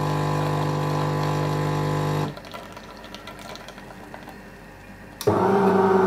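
DeLonghi PrimaDonna Soul bean-to-cup machine humming steadily while it pumps espresso into the cup, cutting off about two seconds in. After a quieter pause of about three seconds, a different hum from the machine starts abruptly near the end.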